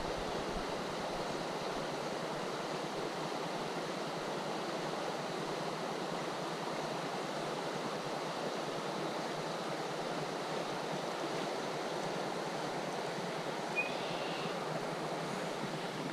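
Steady rushing of a flowing creek's water, an even hiss with no breaks. A short faint chirp sounds once near the end.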